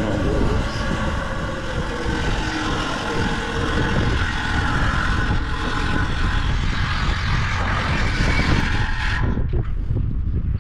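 Cruise ship's anchor being dropped: the anchor chain running out in a loud, continuous rumbling and grinding, its higher hiss dropping away about nine seconds in.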